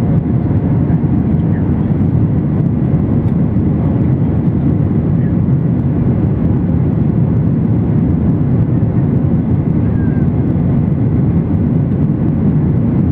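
Steady low cabin noise of a Boeing 737-900ER climbing after takeoff: its CFM56-7B jet engines at climb power and the rush of air past the fuselage, heard from a window seat behind the wing.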